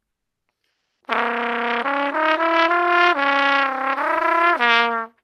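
Trumpet playing a short phrase of several held notes that climb and then fall back, ending on the note it began with; it starts about a second in and stops just before the end.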